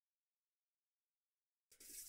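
Silence, then near the end a candy wrapper starts crackling suddenly, a dense high-pitched crinkle.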